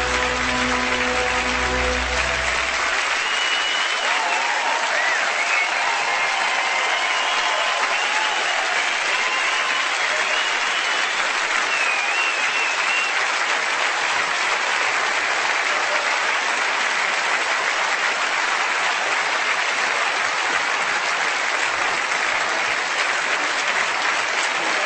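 Audience applauding steadily as the last notes of the music die away about three seconds in.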